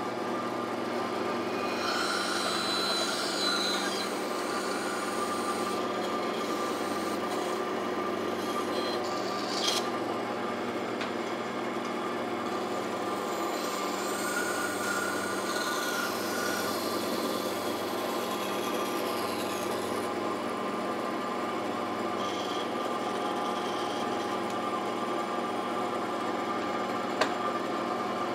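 Bandsaw running with a steady hum while its blade cuts into the end of a thick wooden rail, roughing out dovetail waste. The rasp of the blade in the wood swells about two seconds in and again midway, and there is a sharp tick near the end.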